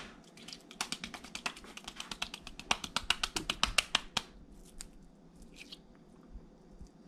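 Rapid sharp clicking and scraping of a utensil worked against a container as a thick mixture is scooped out, about eight to ten clicks a second for some three seconds, then a few scattered clicks.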